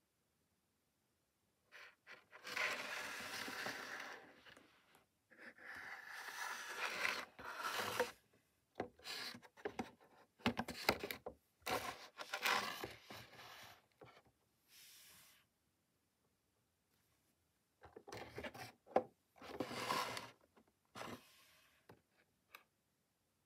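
Clear plastic blister pack and cardboard backing card of a Hot Wheels monster truck crinkling and scraping as it is handled and turned over, in several bouts with short pauses between them.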